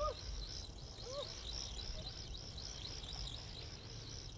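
Outdoor ambience: rhythmic high-pitched chirping, a few pulses a second, over a low rumble, with two short rising-and-falling calls in the first second or so.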